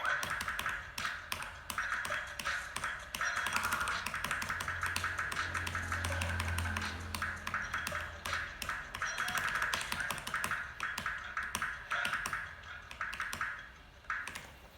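Fast, rhythmic keystrokes on an E-DRA EK387 mechanical keyboard with Huano Brown switches, over music.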